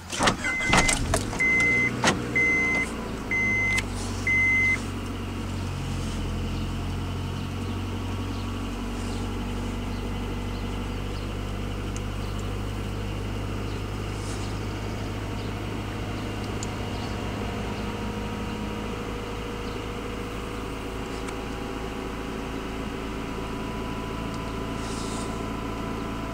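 1996 Honda Accord's 2.2-litre four-cylinder engine cranks and catches within the first two seconds, then settles into a steady fast idle of a little under 2,000 rpm on a cold start. A door chime beeps about six times during the first five seconds.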